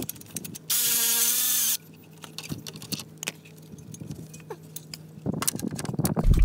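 Milwaukee FUEL cordless ratchet running for about a second as it spins a nut off the turbo-to-downpipe flange stud. After it come scattered light metal clicks, and a cluster of clicks and knocks near the end.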